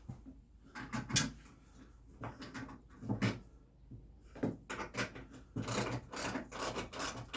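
Wooden bag-board parts being handled and fitted: scattered knocks and rubs of wood on wood, with a quicker run of rattling strokes over the last two seconds.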